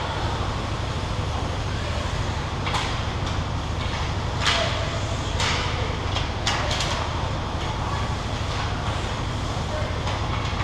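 Ice hockey play in a rink: a steady low rumble with several sharp clacks and scrapes of sticks, puck and skates on the ice, spread through the middle few seconds.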